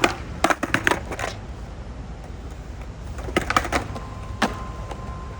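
Clusters of sharp clicks and knocks over a steady low rumble, with a thin steady whistle-like tone coming in about four seconds in.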